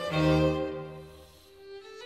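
Background string music: a low held bowed note fading out over the first second and a half, then a slow rising violin line near the end.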